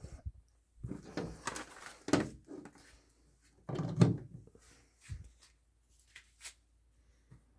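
Irregular plastic knocks and clunks as a PureGuardian ultrasonic tower humidifier is handled and set up before being switched on, the loudest about four seconds in.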